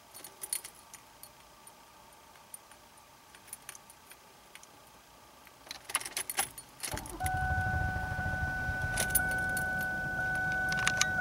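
Ignition keys jingling and clicking as the key of a 2001 Ford Taurus SES is worked in the ignition; about seven seconds in, the 3.0 L V6 cranks briefly and catches on a cold start, then idles steadily with a steady high tone over it.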